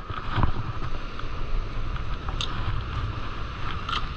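Wind buffeting the microphone in gusts, over a steady higher-pitched hum.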